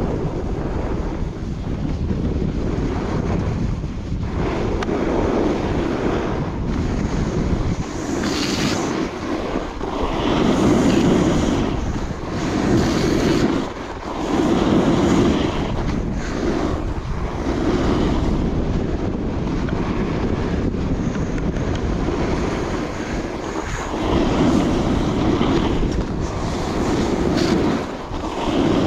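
Wind rushing over a chest-mounted GoPro's microphone at riding speed, with the hiss of a Coiler Nirvana alpine snowboard's edge carving groomed snow, swelling and easing with each turn about every two seconds.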